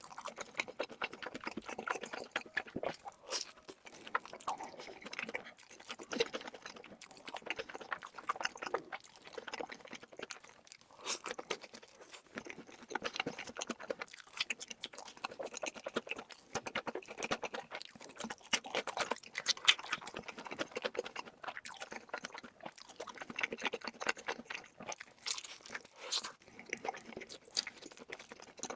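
Close-miked chewing and biting: a person eating with many irregular sharp crunches, as in mukbang eating ASMR.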